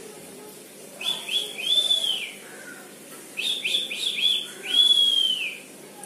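Rose-ringed (Indian ringneck) parakeet calling in two bouts, about a second in and again from about three seconds in. Each bout is a few quick high chirps followed by one longer call that rises and falls.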